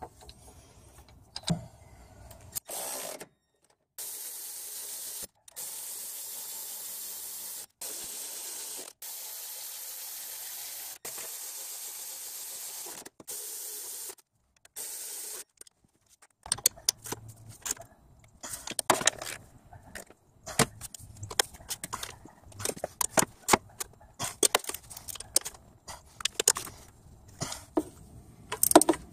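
A power ratchet runs in a series of short bursts of one to two seconds with brief pauses, a steady whir with a lot of hiss, as it drives the engine mount bracket bolts. After that come irregular clicks and metallic knocks of a socket and extension being worked on the bolts by hand.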